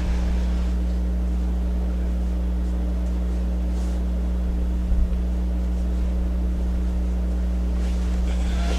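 A steady low hum with no change in pitch, and one faint knock about five seconds in.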